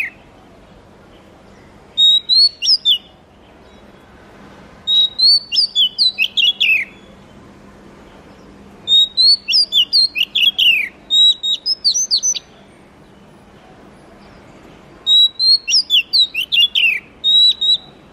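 Oriental magpie-robin singing: four bursts of rapid, sweeping whistled notes, each one to three seconds long, separated by short pauses.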